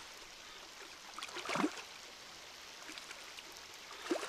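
Shallow river water splashing as men wade through it with hand nets: a faint steady wash of water with two louder splashes, about one and a half seconds in and near the end.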